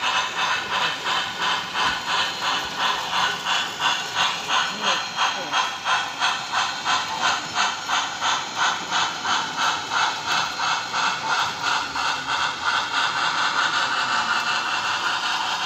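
Model steam locomotive chuffing at a steady pace, about two hissing exhaust beats a second; near the end the beats run together into a steadier hiss.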